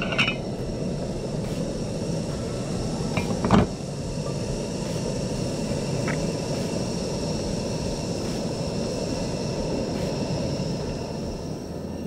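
Metal lid set onto a camping cook pot with a short clank and a brief ring, over a steady rushing noise. A louder knock comes about three and a half seconds in.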